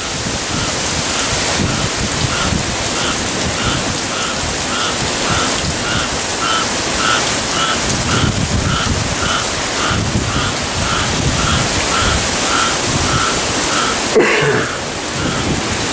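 Heavy rain from Hurricane Dorian pouring down through trees and off a roof, with gusts of wind rumbling on the microphone. Through most of it a short chirping call repeats about twice a second.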